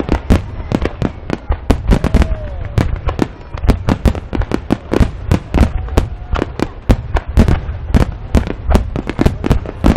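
Aerial firework shells bursting in a dense barrage, about four sharp bangs a second over a continuous low rumble.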